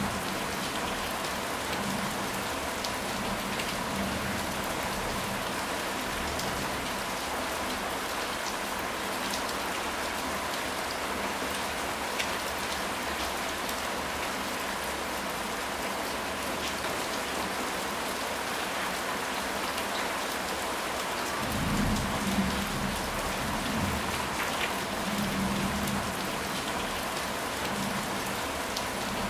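Steady heavy rain falling, a dense even hiss of drops on surfaces. About three quarters of the way through, a low rumble of distant thunder rises and fades over a few seconds.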